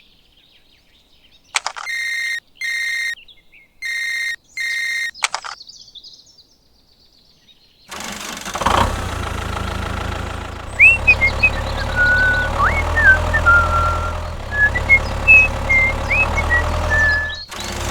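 About four short electronic beeps, each holding one steady pitch. After a few seconds of quiet, a steady motor hum starts and carries on, with high chirping whistles over it.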